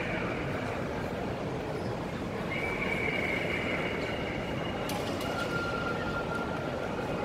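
Steady background hubbub of a busy indoor mall hall. Two drawn-out high tones sound one after the other near the middle, with a few faint clicks.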